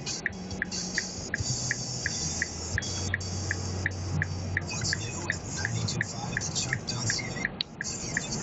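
Music from a car radio playing in the cabin, with a short, even tick about three times a second running through it.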